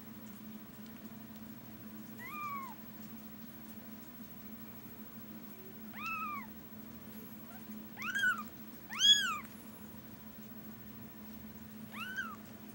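Baby kitten mewing: five short, high-pitched mews, each rising then falling in pitch, the loudest about nine seconds in, over a low steady hum.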